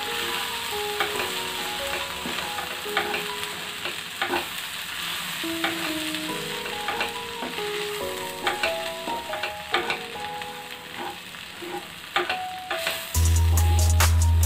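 Rolled oats and vegetables sizzling in a nonstick pan while a spatula stirs through them, with frequent scraping taps against the pan, over a soft background melody. Near the end, louder music with a heavy drumbeat comes in.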